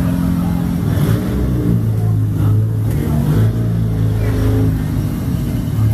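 A car engine idling close by, running steadily at a low, even pitch.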